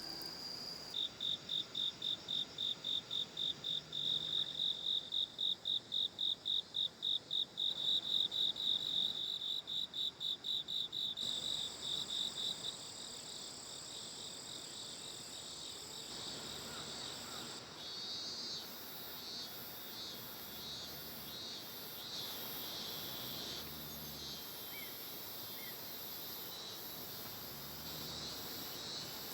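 Late-summer insects calling: one insect gives a high, rhythmic pulsing call, about three to four pulses a second, that stops about twelve seconds in. A steadier chorus of higher-pitched insect trills carries on after it.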